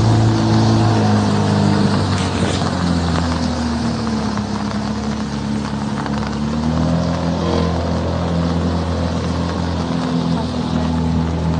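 Motorboat's outboard engine running steadily, with a small shift in pitch in the first couple of seconds.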